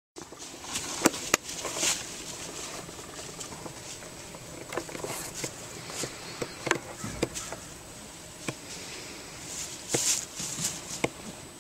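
Rustling with scattered sharp clicks and knocks, over a steady hiss, as a rider handles the saddle and mounts a horse on ground covered in dry leaves.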